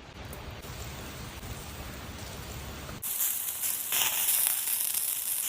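Kebab meat sizzling over an open fire, a steady hiss that turns suddenly louder and brighter about three seconds in.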